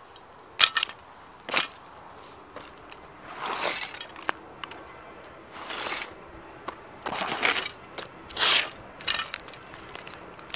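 New Rock platform boots crushing the shattered plastic of a toy police motorbike against paved ground. Two sharp cracks come about a second in, then four longer crunching, scraping bursts, then a few small ticks of plastic bits near the end.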